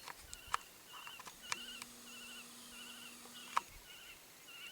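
A bird calling over and over from the crater wall, a short high wavering trill repeated about twice a second, with a few sharp clicks and a low steady hum in the middle.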